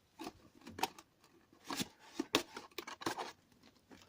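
Cardboard box and plastic-bagged packaging being handled and pushed together: a run of short, irregular rustles and scrapes.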